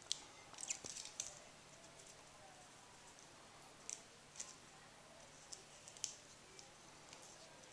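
Faint, scattered light clicks and ticks of thin wire and a small heart charm being handled as the wire is threaded through the charm's hole: a short flurry about a second in, then single clicks every second or two.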